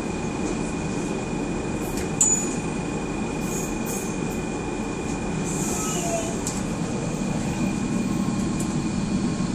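Docklands Light Railway train running on its track, heard from inside the front of the car: a steady rumble with a constant high whine, and one sharp click about two seconds in.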